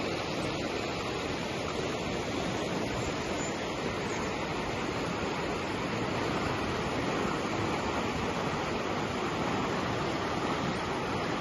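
A small stream in flood after heavy rain, its swollen brown water rushing steadily past and under a bridge; the rush grows a little louder about halfway through.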